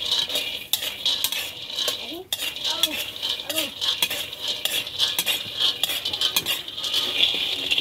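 A metal ladle stirring and scraping peanuts around a dry wok as they roast, with the nuts rattling against the pan. Irregular scrapes and clinks come thick and fast over a steady high hiss.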